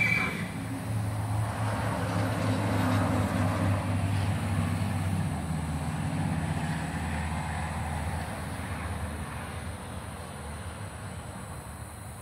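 The tail of a horse's whinny at the very start, then a steady low engine hum and rumble that slowly fades away.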